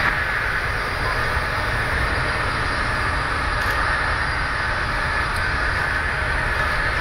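Twin turbofan engines of a jet airliner idling on the ground, a steady low rumble with a steady whine above it.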